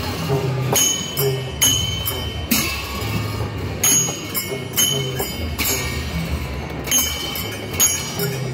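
Traditional Newar dance music: two-headed barrel drums beating a low pattern, with bright metal cymbal clashes about once a second.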